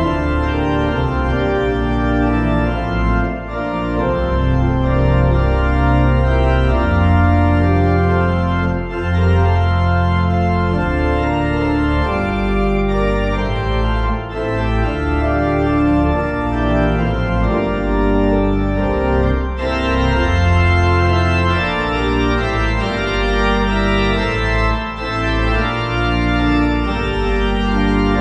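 Organ music: sustained chords over long, deep bass notes that change every second or two.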